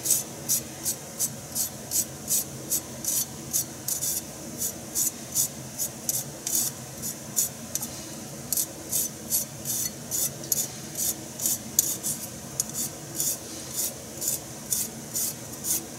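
Kitchen knife shaving a burdock root into thin sasagaki slivers: short, crisp scraping strokes, about two a second, falling into a metal bowl.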